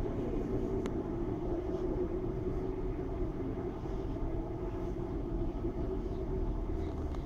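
Steady low rumble with a constant hum, and one faint click about a second in.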